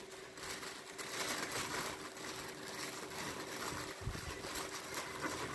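Thin tissue paper rustling and crinkling as it is pressed and tucked into a small cardboard gift box, over a faint steady hum.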